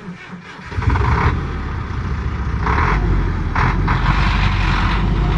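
A Mack truck's engine starts up about three-quarters of a second in and runs with a steady low rumble that slowly grows louder. A few short surges of higher noise sit on top of it.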